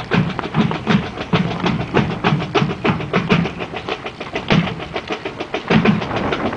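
Marching band drumline playing a cadence: rapid snare drum strokes over deeper, repeated drum beats.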